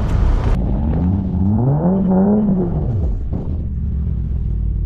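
The Audi TTS's turbocharged four-cylinder engine rises in pitch and falls back once, then runs on at a low, steady rumble. A hiss in the background cuts off about half a second in.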